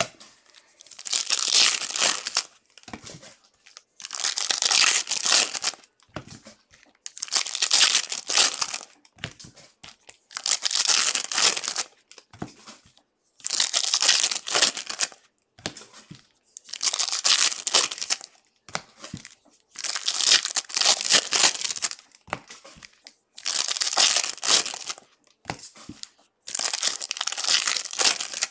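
Foil wrappers of baseball-card packs crinkling as they are torn open one after another: about nine crackling rips, each lasting a second or so, roughly every three seconds.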